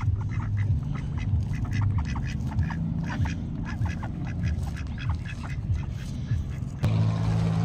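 Waterfowl at a pond giving many short quacking calls in quick succession. A steady low drone cuts in abruptly near the end.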